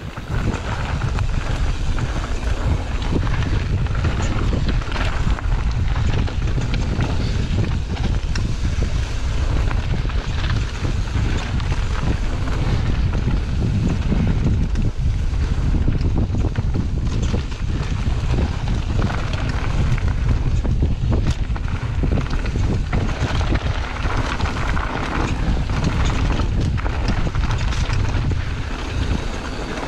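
Wind buffeting the microphone over the rush of mountain-bike tyres rolling on a dirt and gravel trail at speed, with short rattles and knocks as the bike goes over bumps.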